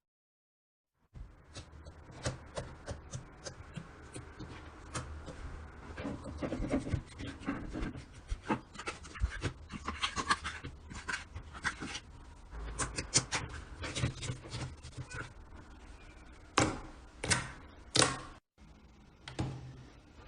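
Hands squeezing and poking slime, with dense wet clicks and crackles starting about a second in and three louder pops near the end.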